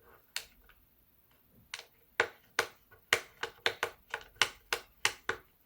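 A run of sharp, small clicks, sparse at first and then coming two to four a second from about two seconds in, as a hex driver works at a stubborn screw in a Yuneec ST-16 controller's plastic housing.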